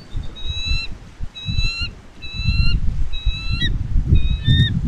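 Bald eagle calling: a series of about five high, piping notes, roughly one a second, each with a short hook in pitch at its end. Wind buffets the microphone underneath.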